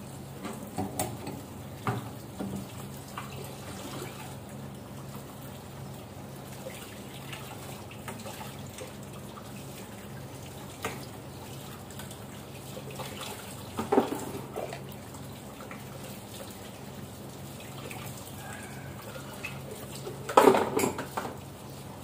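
Kitchen tap running into a sink during hand dishwashing, with dishes and utensils clinking and knocking against each other. There is a sharp clatter a little past halfway, and the loudest one comes near the end.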